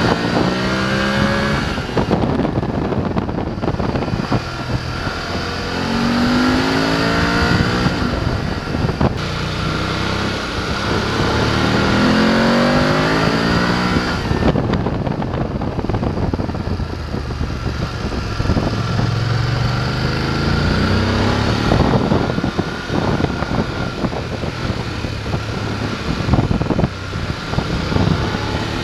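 BMW F 850 GS parallel-twin engine under way: it pulls up in pitch and drops back three times in the first half, as in accelerating through the gears, then runs more evenly with wind rushing over the microphone.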